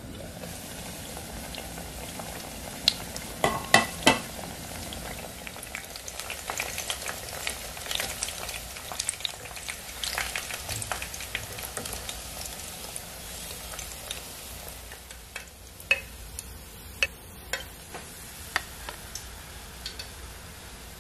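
Pork belly slices frying in hot oil in a pan: a steady sizzle full of crackling pops of spitting fat. There are a few loud sharp knocks about four seconds in, and more scattered loud pops near the end.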